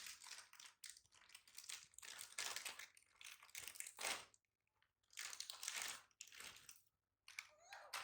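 Irregular bursts of crinkling and rustling, with short gaps between them.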